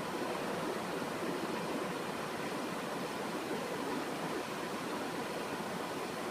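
Steady, even hiss of room tone with no distinct sound events.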